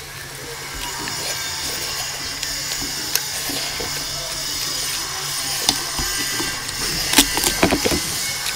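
Cooked goat head being torn apart by hand: wet tearing of meat with crackling and cracking of bone and cartilage, and a burst of sharp cracks about seven seconds in.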